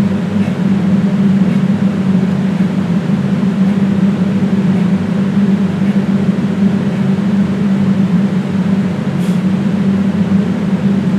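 A loud, steady droning hum with a strong low tone, like a running motor or appliance, with a faint click about nine seconds in.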